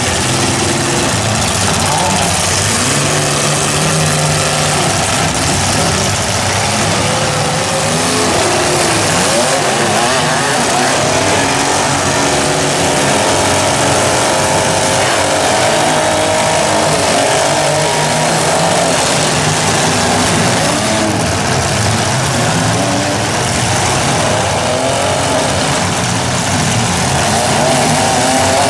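Several compact demolition derby cars' engines running and revving together, their pitches rising and falling as the cars manoeuvre and ram one another, over a steady haze of noise.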